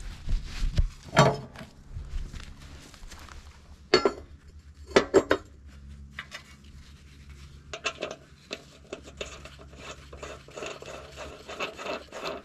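Scattered metal clinks and knocks as mower blades, blade bolts and washers are handled and the bolts started by hand on a riding mower deck, with sharp clinks about a second in and again around four and five seconds in.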